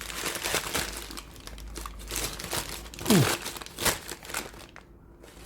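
Packaging being unwrapped by hand: irregular crinkling, rustling and tearing of wrapping, with a brief falling squeak about three seconds in.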